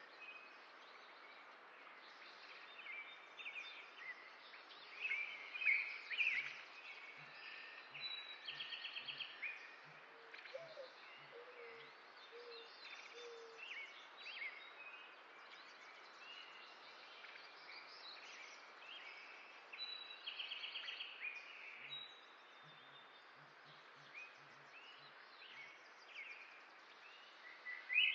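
Several small songbirds chirping and calling over a steady outdoor hiss, with a rapid trill about eight seconds in and again about twenty seconds in. There are two runs of soft, low taps.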